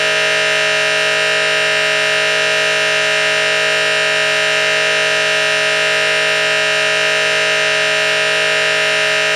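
A loud, steady buzzing tone with many overtones, holding one pitch without change, with a faint slow wobble recurring about every second and a quarter.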